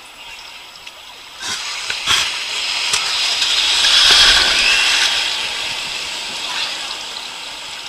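Ocean surf washing in shallow water right at the microphone: a foaming, hissing rush of water that builds over a couple of seconds, peaks about halfway through, then slowly fades, with two short knocks as it begins.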